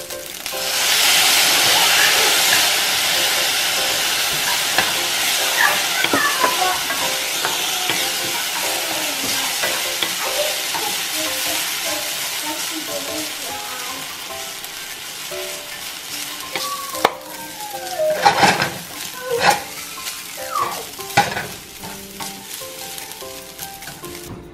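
Noodles sizzling loudly in a hot nonstick frying pan as stir-fry sauce hits them about a second in, the sizzle slowly dying down while a wooden spatula stirs and tosses them. A few louder scrapes and knocks of the spatula against the pan come near the end.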